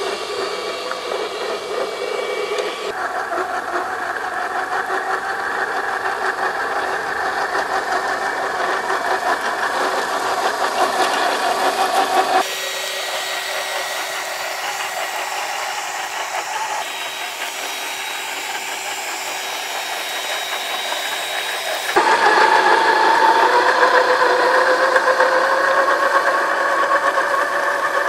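RC crawler's brushed electric motor and gear drivetrain running, a whine with rattling that rises and falls with speed. It changes abruptly several times, and is loudest near the end with a rising whine.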